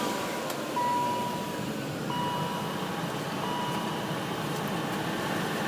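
Car warning chime beeping three times, evenly spaced about a second and a half apart, then stopping, over a steady rushing hum of the car just switched on.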